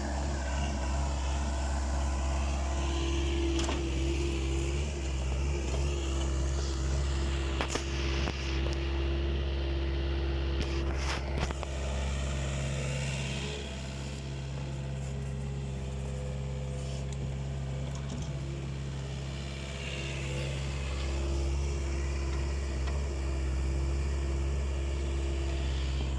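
Takeuchi excavator's diesel engine running steadily under working load, its level easing off for a few seconds midway and then rising again. A few sharp knocks stand out in the first half.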